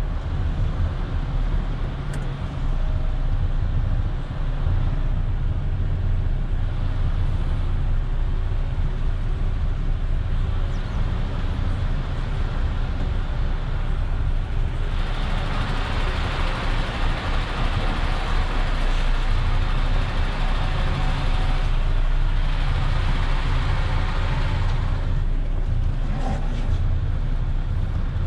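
Semi-truck's diesel engine running at low speed, heard from inside the cab as a steady low rumble. For about ten seconds in the middle, a louder rushing noise rises over it and then falls away.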